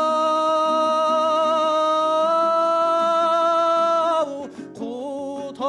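Kazakh folk singing: a voice holds one long note for about four seconds, rising slightly in pitch partway, then breaks off. After a short pause it returns with a wavering, ornamented phrase over a dombra accompaniment.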